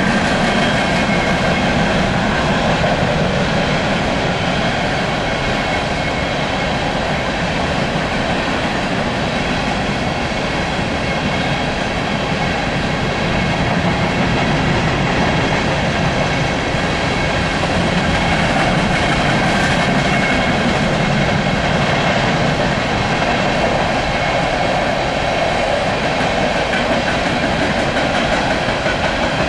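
Empty coal cars of a long freight train rolling past at steady speed: wheels on rail giving a loud, even rolling noise with faint steady ringing tones through it.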